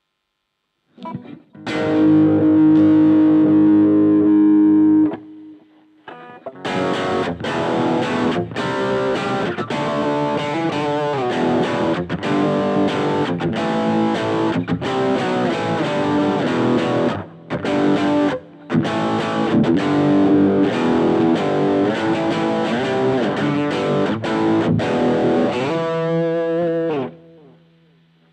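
Electric guitar played through a Blackstar Fly 3 mini amp with distortion: a chord held for about three seconds, then a busy riff of changing notes with a few brief stops, ending on a chord left to ring out and fade.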